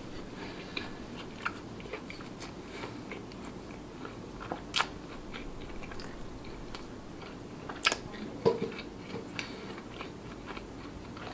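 Close-miked chewing of tender lamb shank meat, with short wet mouth clicks throughout and a few louder ones about five and eight seconds in.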